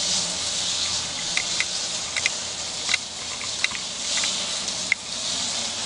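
Electric drive motors of a Karman XO-202 stand-up power wheelchair running as the chair turns a full circle in place: a steady hiss over a faint low hum, with scattered light ticks.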